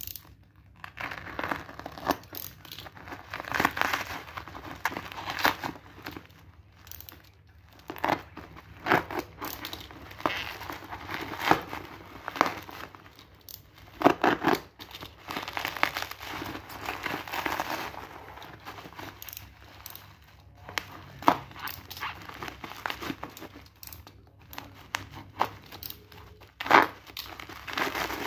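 Black plastic parcel wrapping and packing tape crinkling and tearing as they are cut open with a small blade and pulled off by hand, in irregular rustles with sharp crackles.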